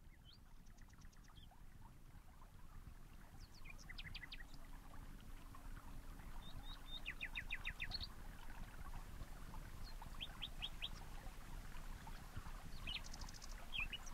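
Small birds chirping faintly in short, quick series of repeated notes, several times over a low background rumble.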